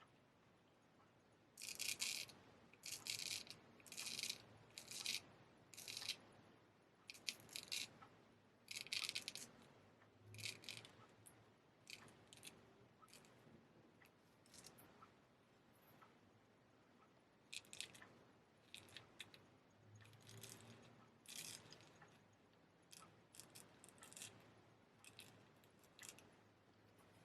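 Straight razor scraping through beard stubble in a series of short, crisp strokes, one or two a second. The strokes are louder in the first half and fainter and more scattered later.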